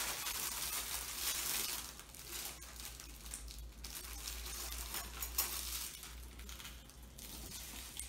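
Plastic wrapping crinkling and rustling as paper plates and a cake knife are unwrapped, loudest in the first two seconds, with a sharp click about five seconds in.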